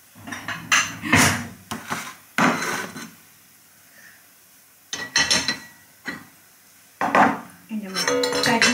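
Plates and cutlery clinking and knocking as a plate is picked up and handled, in a string of short separate clatters.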